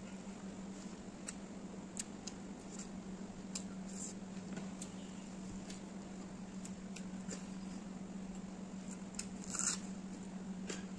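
Close-up eating sounds: chewing and smacking with scattered small clicks from hand-eaten rice and chicken, over a steady low hum. Near the end comes a louder, sharper bite as a raw red onion is bitten into.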